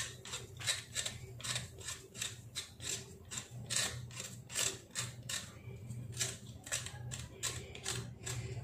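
Small kitchen knife paring the skin off a raw potato, short scraping strokes of the blade against the peel at about three a second.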